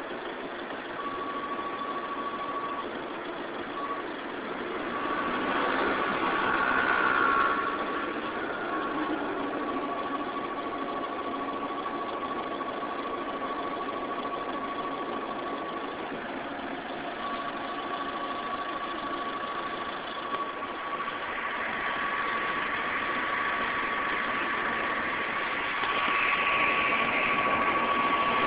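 Ford TDCi common-rail turbodiesel engine idling with an abnormal noise: a thin, steady high-pitched whine over the engine's running, dropping out briefly a few times. The noise appeared after a start, and its cause is unknown.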